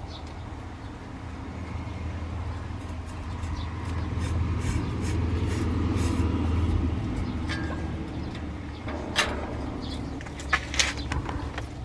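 A low rumble swells and fades over several seconds, followed by a few sharp clicks near the end.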